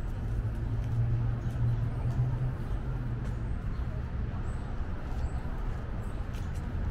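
City street ambience: the steady low hum of motor traffic, strongest in the first couple of seconds, with faint voices of people nearby.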